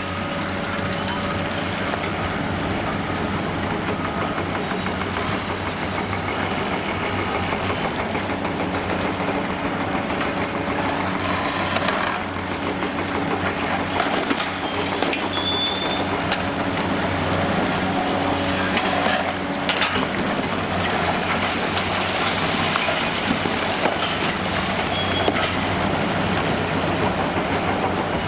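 Heavy demolition excavator's diesel engine running steadily under load while reinforced concrete is crushed and broken, with continuous crackling and scattered sharp cracks of breaking concrete and falling debris.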